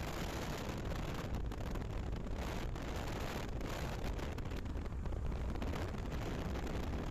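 Steady road and wind noise of a car travelling at speed, heard from inside the moving car.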